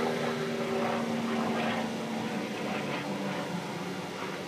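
An aircraft passing overhead: a steady drone with a low hum that slowly fades away.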